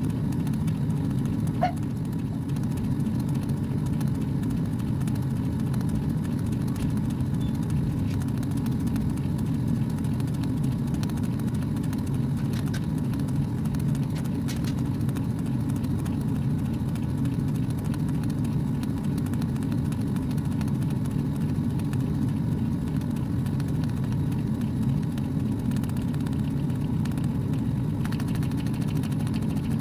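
Laser engraver running while it engraves a pine board: a steady, even low hum from the machine's fans and gantry.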